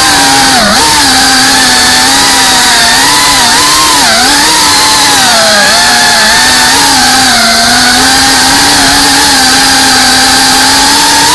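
FPV quadcopter's electric motors and propellers whining, heard close from the onboard camera, with the pitch dipping and rising again several times as the throttle changes in the first half, then holding steadier with a slight rise near the end, over a steady rush of air.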